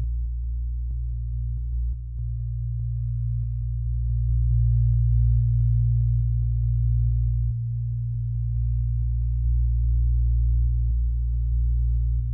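A mechanical pyramid metronome ticking evenly, about three ticks a second, over a low, steady synthesizer drone that is the loudest sound.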